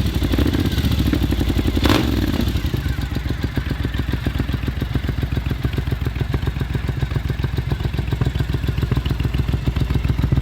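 Triumph Scrambler 900's parallel-twin engine running at idle through an Arrow aftermarket exhaust, with a steady, even pulse; it is a little fuller in the first couple of seconds, and there is one sharp click about two seconds in.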